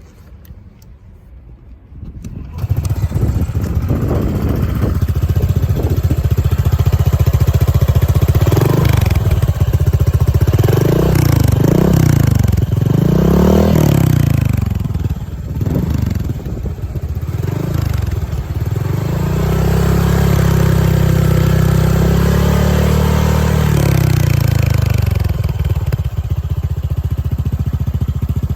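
Honda ADV scooter engine with a newly fitted Akrapovič silencer starting about two seconds in and idling. It is then blipped several times, the revs rising and falling. It is held at higher revs for a few seconds and drops back to idle near the end.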